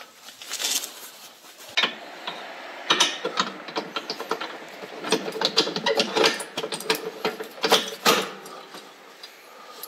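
Irregular metallic clinks and knocks of steel mounting pins, clips and brackets being handled and fitted.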